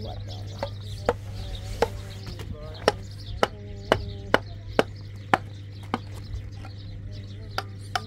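Sharp knocks of a mason's trowel striking concrete blocks and mortar, about a dozen strikes at uneven spacing, coming fastest in the middle.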